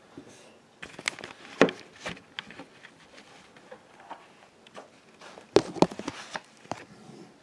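Plastic toy figures and a toy laptop being handled and set down, making sharp clicks and rustling in two clusters, about a second in and again near the end.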